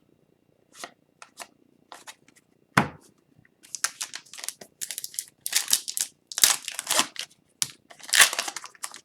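Hockey trading cards and their foil pack wrapper being handled, crinkling and rustling. The handling starts with a few light clicks and one sharp knock, then turns into busy, continuous crinkling from about three and a half seconds in.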